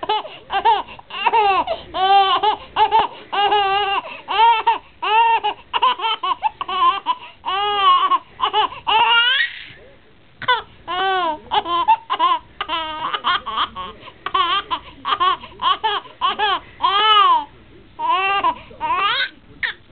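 Baby laughing hard in quick runs of high-pitched giggles, each breath's laugh rising and falling in pitch. There is a short pause about halfway through.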